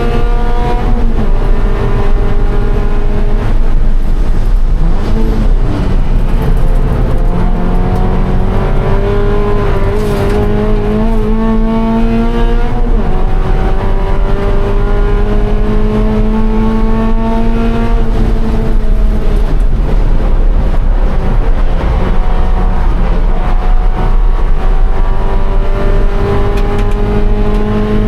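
2013 Scion FR-S race car's flat-four engine heard from on board at racing pace, its pitch climbing under acceleration and falling back sharply several times, notably about 13 and 18 seconds in, as the driver shifts or lifts for corners.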